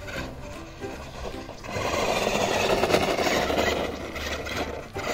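Ruko 1601AMP amphibious RC monster truck's electric motor and drivetrain whirring as it drives through sand. It gets loud about a second and a half in and drops briefly near the end.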